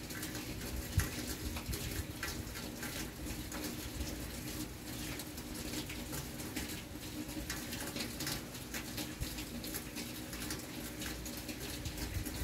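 Rain falling, with many close drops pattering and ticking near the microphone, over a faint steady hum. A single sharper tap stands out about a second in.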